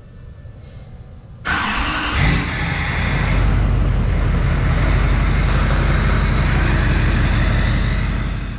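Truck engine starting about a second and a half in, with a brief rise in revs just after it catches, then running at a steady idle.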